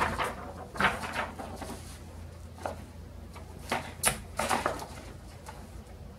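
Scattered mechanical clicks and clunks from a 1928 Underwood No. 5 typewriter being handled, irregular knocks spaced about a second apart rather than a steady typing rhythm.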